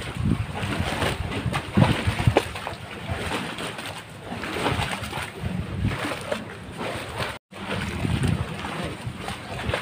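Wind buffeting the microphone, a rough, gusting rumble, with two sharp knocks about two seconds in. All sound cuts out for a moment near the end.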